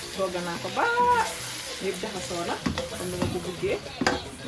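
Food sizzling as it is stir-fried in a hot pan, with a few sharp knocks of the utensil against the pan. A short high-pitched sound comes about a second in.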